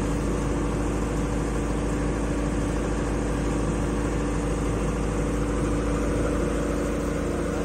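Large enclosed diesel generator set running steadily at a constant speed, an even engine sound with a few fixed tones that does not change.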